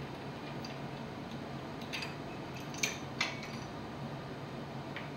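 A few sharp metallic clicks and clinks of hand tools and steel parts being worked at the back of an engine block: one about two seconds in and two close together a second later, over a steady low hum.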